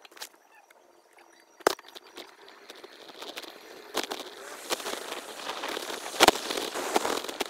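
Wind and road noise from a bicycle ride, faint at first and building from about a second in. About three sharp knocks come through as the bike jolts over the uneven pavement.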